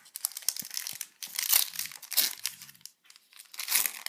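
Foil wrapper of a Yu-Gi-Oh! booster pack being torn open and crinkled by hand, a run of crackling rustles that is loudest about a second and a half in and again just before the end.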